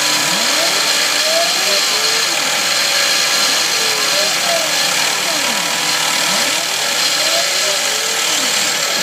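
X2 mini mill converted to CNC, its spindle running steadily as an end mill cuts a circular pocket in a metal plate. The X and Y axis stepper motors sing in repeated rising and falling pitches as the table traces the circles.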